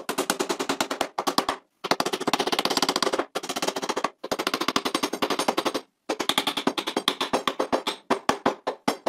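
Hammer driving small nails through thin plywood strips into a wooden workbench leg. It comes in quick runs of strikes, about eight to ten a second, with brief pauses between the runs.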